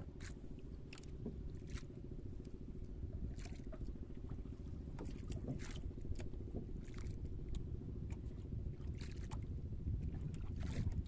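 Small boat's engine running steadily with a low rumble, with scattered light clicks and knocks on top.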